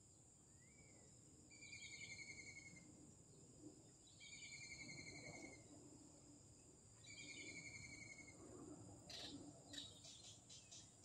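Faint insect chorus: a steady high drone, with a pulsed trill that repeats three times, each about a second long. Near the end there is a run of quick faint clicks.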